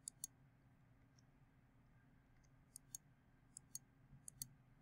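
Faint, sharp clicks of a computer mouse and keyboard, mostly in quick pairs: a couple near the start, then several more from about three seconds in. They come from switching between the selection and eyedropper tools and clicking shapes to fill them.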